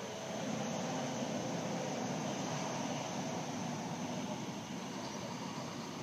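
Heavy fire crew-carrier trucks driving slowly past in a line, a steady engine and tyre rumble that swells as a truck draws level in the first half and then eases.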